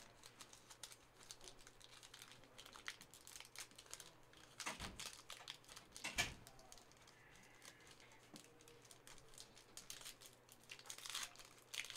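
Faint crinkling and light clicking of trading-card packs and cards being handled and torn open, with two soft knocks about five and six seconds in.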